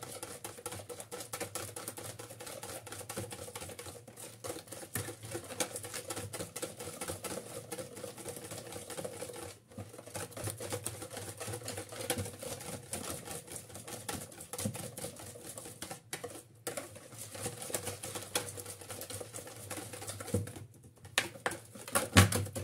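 Hand wire whisk beating eggs and sugar in a plastic bowl: a fast, continuous clicking and tapping of the wires against the bowl, with a few louder knocks near the end.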